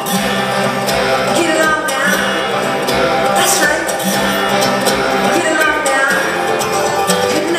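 Live bluegrass-style band music: plucked banjo and guitar playing a song, with melodic lines gliding over the strings.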